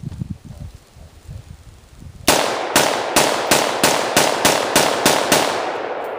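AR-15 rifle firing Lapua 55-grain .223 ammunition in rapid semi-automatic shots, about eleven rounds at roughly three to four a second starting a couple of seconds in, with the reports echoing away afterward. The rifle cycles every round without a malfunction.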